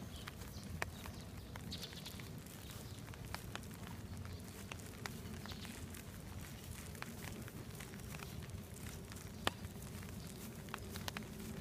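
Light footsteps and rustling on grass, a scattered run of soft clicks, over a steady low rumble of wind on the microphone, with one sharper click about nine and a half seconds in.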